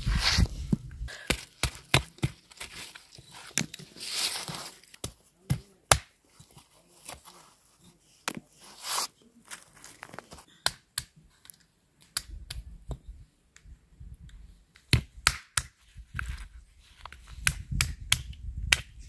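A hand-held stone knocking green walnut husks against a flat stone slab, sharp irregular knocks with the wet husks crushing and tearing as they are peeled off the nuts.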